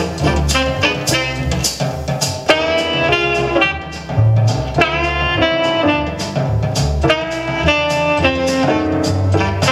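Instrumental jazz with saxophone and brass over bass and drums, played back through a stereo amplifier.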